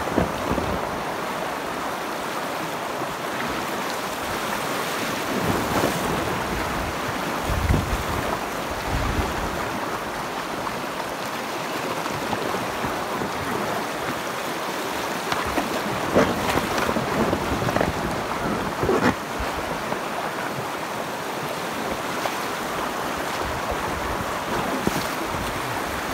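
Shallow river rapids rushing and splashing steadily around the bow of a packraft, with a few short, louder splashes now and then.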